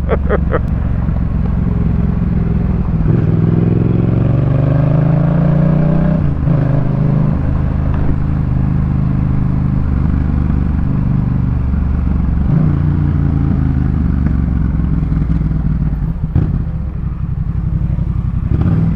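Yamaha MT-07's parallel-twin engine through a Jeskap K4 full aftermarket exhaust, under way: it revs up with rising pitch for a few seconds, drops as it shifts gear about six seconds in, then runs at a steady pitch, with another change about twelve seconds in.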